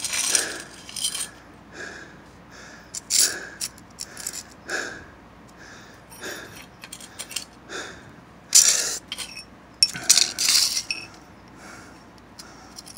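Bent metal rod clinking and scraping on a concrete floor as it is handled and set against a protractor: a dozen or so separate short metallic knocks, the loudest about two-thirds of the way through.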